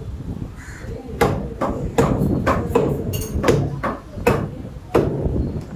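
A butcher's cleaver chopping through beef ribs onto a wooden block: a series of heavy chops, roughly one to two a second, unevenly spaced.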